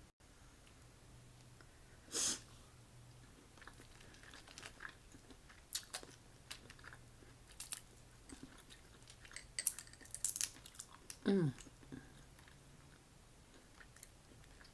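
Boiled crawfish shells cracking and crackling as they are peeled by hand, in scattered clicks with a few louder snaps, mixed with chewing. A short falling tone sounds near the end.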